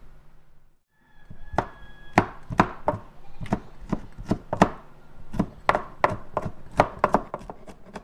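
Cleaver chopping garlic cloves on a bamboo cutting board: sharp knocks of the blade on the board, about two or three a second, starting about a second and a half in.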